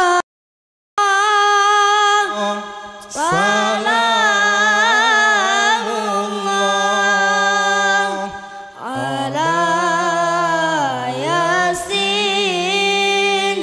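A high voice sings an Arabic devotional chant unaccompanied, holding long, wavering, ornamented notes, with a lower sustained part underneath from about two seconds in. The sound cuts out completely for under a second near the start.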